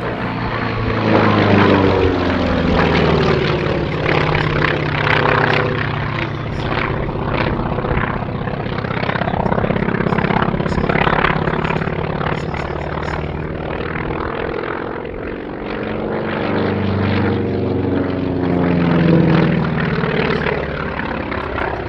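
Grumman Wildcat's radial piston engine running through an aerobatic routine. Its note falls in the first few seconds and climbs again in the second half as the fighter manoeuvres.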